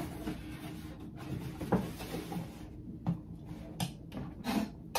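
Fabric storage bins being pushed into the cubbies of a cube shelf: a few light knocks and scuffs as they bump into place.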